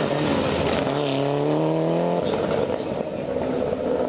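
Rally car engine revving hard, its pitch climbing for about a second before breaking off.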